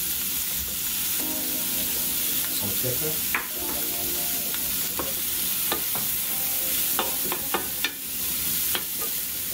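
Diced onion, carrot and celery sizzling gently in butter in a stainless steel frying pan over medium heat, a steady hiss with scattered sharp clicks and pops. A wooden spoon stirs the vegetables near the end. This is a light sauté, meant to soften the onions without browning.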